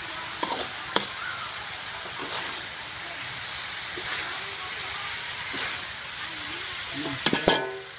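Food sizzling in a hot wok as it is stir-fried with a metal spatula, the spatula scraping and clicking against the wok. Near the end comes a quick run of loud metal clanks, spatula striking the wok.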